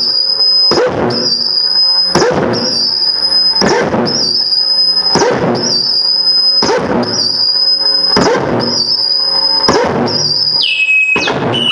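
Electronic noise music: a high, held squeal looping about every second and a half, each cycle broken by a short harsh burst with a low swooping tone beneath. Near the end the squeal drops to a lower pitch.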